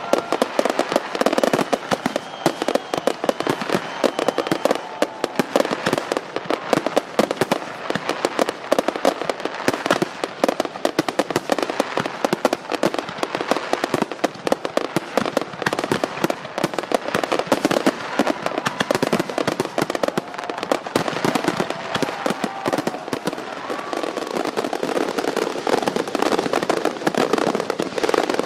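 Fireworks display: a dense, continuous barrage of bangs and crackles from bursting shells, many a second, with no pause.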